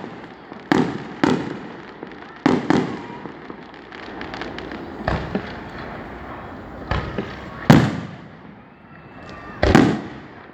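Aerial fireworks shells bursting, about ten booms at irregular intervals, each with a trailing echo; the two loudest come in the last few seconds.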